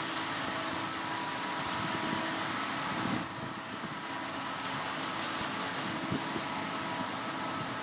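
Case combine harvester running steadily at work: a continuous mechanical hum with faint steady whining tones, a slight dip about three seconds in, and a few light knocks near the end.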